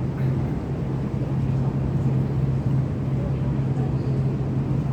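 Steady low hum and rumble of an MTR Tuen Ma Line C-Train at a metro station platform, with one constant low tone that does not change.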